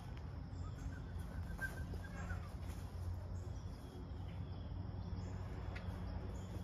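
Outdoor ambience: a steady low rumble with faint bird chirps, one chirp more noticeable a second or two in.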